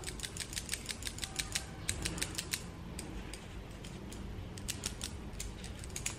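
Fine-mesh metal sieve being tapped and shaken by hand to sift cocoa powder and cake flour: a fast, even run of light ticks, about six a second, that thins out to a few scattered ticks after about two and a half seconds.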